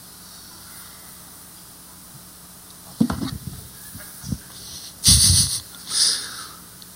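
Steady hiss, then a few sudden bumps and rustles: a thump about three seconds in, a short knock after it, and a louder rustling thump about five seconds in with another just after.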